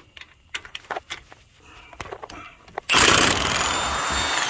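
Cordless impact wrench on a long extension running for about two seconds, starting about three seconds in, as it drives out a wheel-bearing hub bolt on a 2001 Ford F-150; its whine slides down in pitch as it winds down. Before it, light clicks and knocks of the socket and extension being handled.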